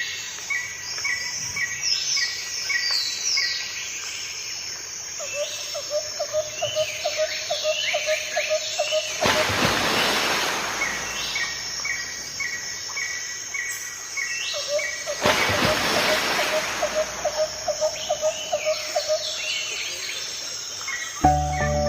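Several birds singing and calling, with series of short repeated notes and quick downward-sweeping chirps over a lower rapid chirping. Twice a rushing noise swells and fades over about two seconds, near the middle and about two-thirds of the way through.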